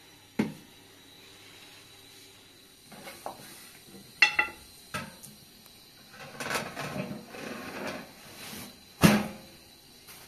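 Pots, dishes and utensils being handled: scattered knocks and clinks, one ringing briefly about four seconds in, then a couple of seconds of rubbing and shuffling and a sharper knock near the end.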